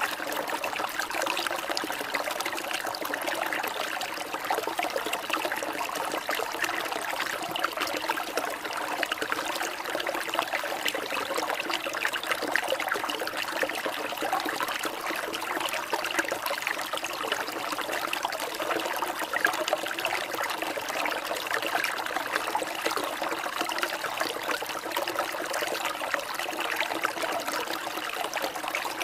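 Running water trickling and babbling steadily, like a small stream, without pause or change.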